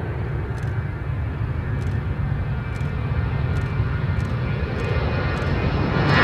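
Avro RJ100's four Honeywell LF507 turbofans at takeoff power as the jet rolls down the runway and lifts off: a steady, deep jet noise that grows gradually louder toward the end.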